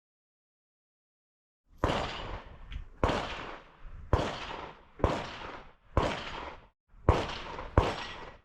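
A string of about seven .22 rimfire pistol shots, roughly one a second, each trailing off briefly, starting about two seconds in after a silence: shots fired at steel plates in a Steel Challenge run.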